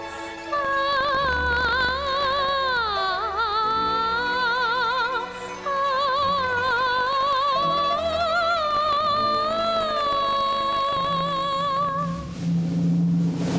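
A high female voice singing a slow melody of long-held notes with wide vibrato, over orchestral accompaniment. About a second before the end the voice stops and the orchestra swells.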